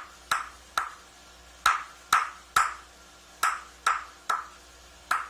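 Sharp, hollow clip-clop clicks in groups of three, four times over, imitating a horse's hooves galloping.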